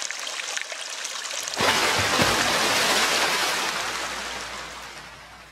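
Splashing water sound effect: a trickle that swells into a louder splash about a second and a half in, then slowly fades.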